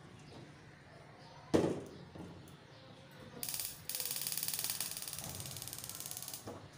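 A metal clank about a second and a half in, then a gas hob's electric igniter ticking rapidly for about three seconds as the burner is lit.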